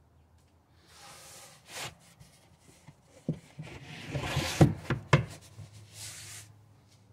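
Fabric-covered panels of a Tesla Model Y parcel shelf being slid and folded by hand: scraping rubs and a series of sharp knocks as the panels bump together, the loudest knocks about two-thirds of the way through.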